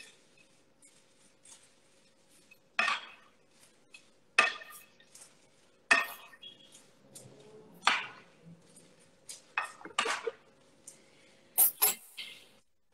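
Metal fork and spoon scraping and clinking against a terracotta dish while tossing shredded salt cod, onions and crispy straw potatoes: separate clatters every second or two.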